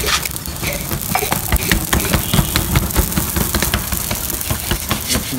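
Gas torch burning with a steady low rumble as it singes the hair off a slaughtered pig's hide, with frequent short crackles and clicks throughout.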